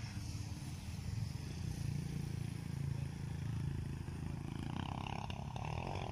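Diesel engines running steadily: a farm tractor working the soil with a disc implement, and a six-wheel dump truck. A brighter sound joins the rumble near the end.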